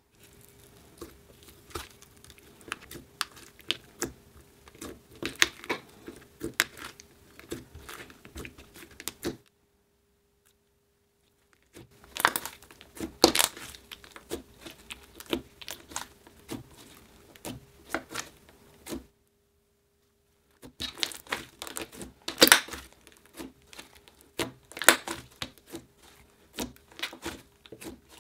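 Hands pressing, squishing and stretching a thick green slime, giving quick sticky crackles and small pops. The sound cuts out twice for a couple of seconds, with a faint steady hum underneath.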